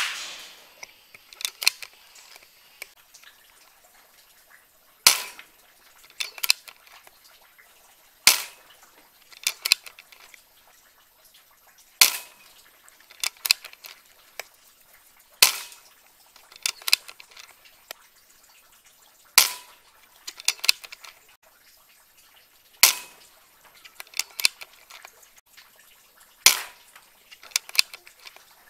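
PCP air rifle firing seven sharp cracks about every three and a half seconds. Each is followed a second or so later by a cluster of lighter clicks.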